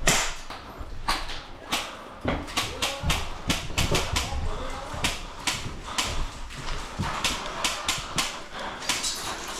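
Airsoft guns firing during a game: many irregular sharp pops and clicks, a few a second, over faint voices.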